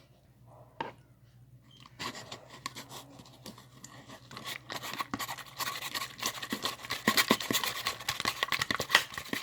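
Sticky green slime being mixed with activator, a dense run of wet crackling and clicking that starts about two seconds in and grows louder. The slime is still sticky and the activator is being worked in.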